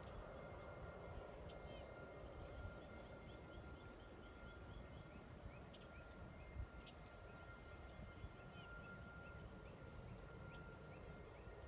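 Faint outdoor ambience: a low rumble and a steady high tone, with two runs of quick, evenly repeated bird chirps. No hoofbeats stand out.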